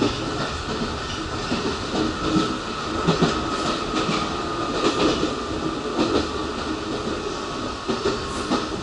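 Commuter train running, heard inside the passenger car: a steady rumble of wheels on the rails with irregular clatter over rail joints, and a faint high tone drawn out through the middle.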